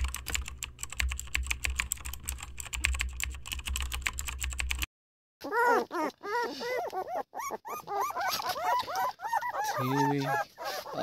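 A fast run of typing-style key clicks over a low pulsing beat, cut off suddenly about five seconds in. After a brief gap, young puppies whimper and squeal in many short cries that rise and fall.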